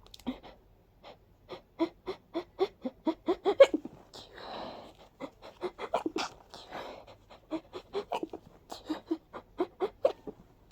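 A person's short, sharp, breathy puffs of breath, about three or four a second in quick runs, broken by a longer breathy breath about four seconds in and another about seven seconds in: the hitching breathing of an allergy sneezing fit.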